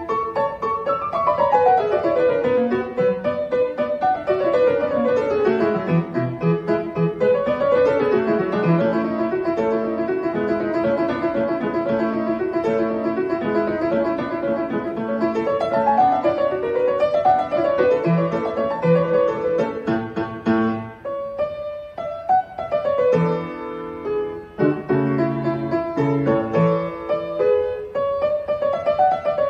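Grand piano played solo: fast runs of notes sweeping down from the upper register, then a stretch of quick repeated figures. About two-thirds through it breaks off briefly and comes back with heavier low chords.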